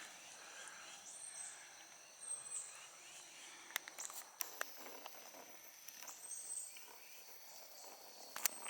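Faint, steady high-pitched drone of insects trilling, with a few brief sharp clicks.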